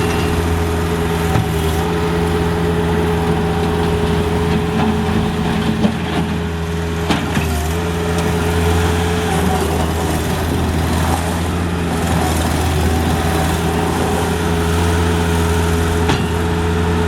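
Bobcat 773 skid steer's diesel engine running at a steady speed, with a few sharp knocks over it, and starting to wind down at the very end.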